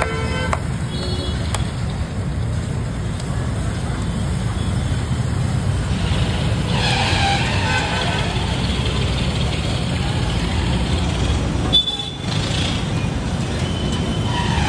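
Steady low rumble of roadside traffic and the stall's gas burner, with a faint car horn toot about a second in. About six and a half seconds in, deep-frying oil in the kadai sizzles loudly for a couple of seconds as a bhatura goes in to puff up.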